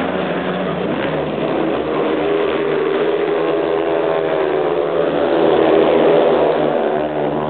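Several speedway bikes with 500cc single-cylinder engines racing at full throttle, their engine notes overlapping and shifting in pitch through the bend. They grow louder about three quarters of the way through as the bikes sweep past close by.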